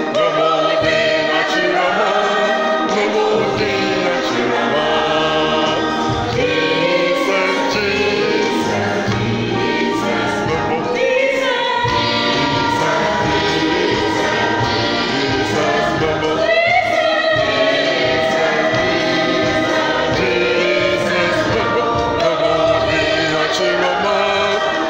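Mixed church choir of men's and women's voices singing an agbadza-style gospel medley.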